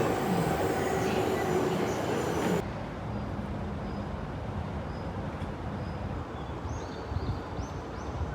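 Train running noise, an even rumble that drops suddenly to a quieter rumble about two and a half seconds in.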